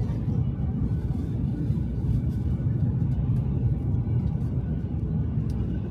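Steady low rumble of a Shinkansen bullet train running, heard from inside the passenger cabin.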